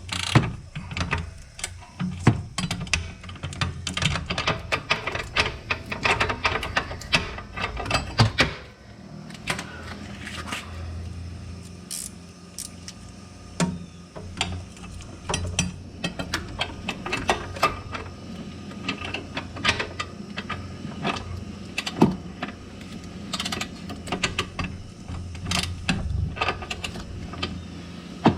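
Metal hand-tool clicks and clinks: a ratcheting wrench working on a rear sway bar link nut. The clicking is dense for about the first eight seconds, then turns to scattered clinks and knocks, over a low steady hum.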